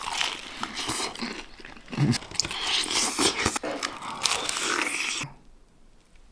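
Close-up crunching of a bite into the crispy breaded crust of Popeyes fried chicken, a dense crackle of many sharp little snaps as it is bitten and chewed; it cuts off suddenly about five seconds in.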